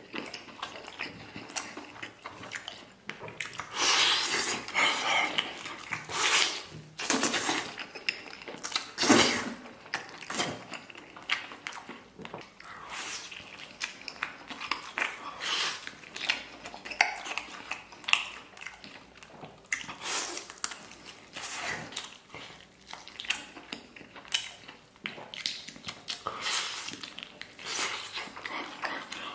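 Close-miked eating sounds: a man chewing and slurping noisily in irregular bursts, with utensils now and then knocking against a dish.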